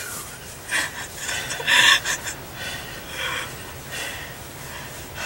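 Hunters breathing hard in the blind after the shot: a few short, heavy, panting breaths about a second apart, the loudest near two seconds in.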